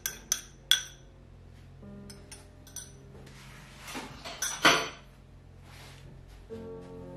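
Two glass clinks at the start, then a silicone spatula scraping and stirring a thick chocolate-and-cream mixture in a glass mixing bowl, loudest about two thirds of the way through. Soft background music plays underneath and swells near the end.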